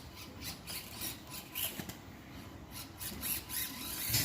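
Radio-controlled truck driving over a course of tires, giving an irregular string of clicks and rattles from its drivetrain and plastic body.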